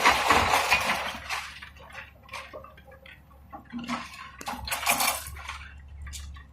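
Demolition debris clattering: a loud rush of falling material that dies away within the first second or two, then scattered clinks and knocks.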